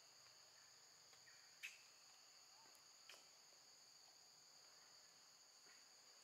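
Faint, steady high-pitched chorus of insects in the forest. Two short clicks cut through it, about a second and a half apart, the first the louder.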